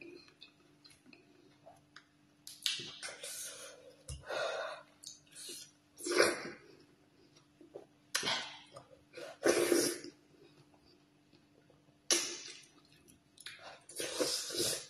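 Close-up eating sounds of fufu with slimy ogbono soup eaten by hand: a series of about seven short, wet slurping and smacking mouth noises a second or two apart, with quieter chewing between.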